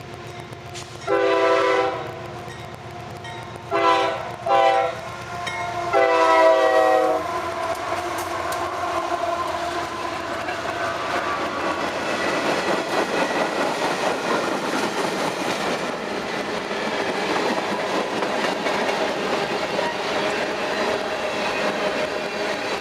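Diesel freight locomotive air horn sounding four chord blasts, long, short, short, long, echoing off the surroundings. Then the CSX mixed freight rolls steadily past, wheels clacking over the rail joints under a continuous rumble.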